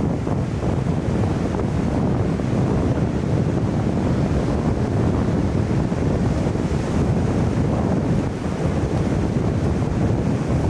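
Wind buffeting the microphone over a steady roar of rushing water.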